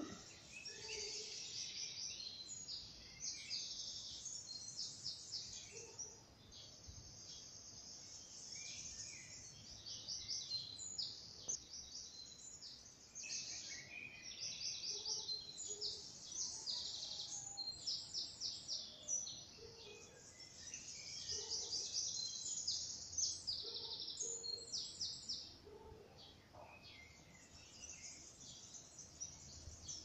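Dawn chorus of many small songbirds: dense, high-pitched chirping and rapid trills overlapping without a break, swelling and easing every few seconds.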